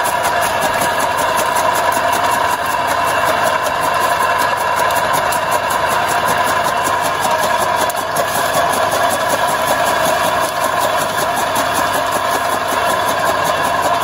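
A powered chaff cutter running steadily as green fodder is fed into it and chopped, its flywheel and blades giving a continuous, even mechanical drone.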